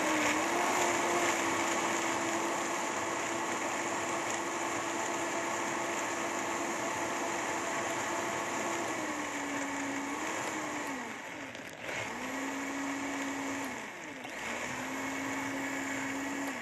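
Countertop blender motor running steadily, blending soft tofu, cashews and water into a creamy dressing. About nine seconds in its pitch drops, it briefly slows and picks up again twice, and it winds down near the end.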